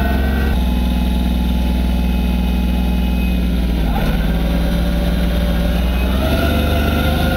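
Massey Ferguson 1020 compact tractor's diesel engine running steadily while it drives a snowblower throwing snow. Its pitch shifts slightly about half a second in, around four seconds in and again about six seconds in.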